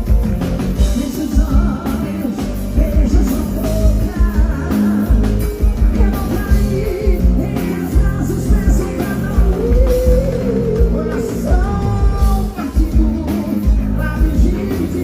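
Forró band music with a steady, driving beat and a melodic lead line.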